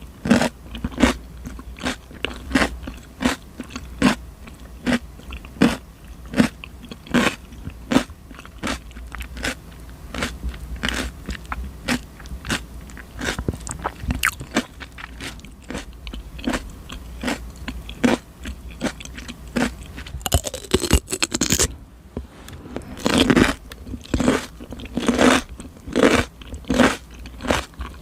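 Raw cucumber being bitten and chewed close to the microphone: crisp, wet crunches about two a second. About twenty seconds in comes a denser crackling stretch, then after a short pause the crunches grow louder.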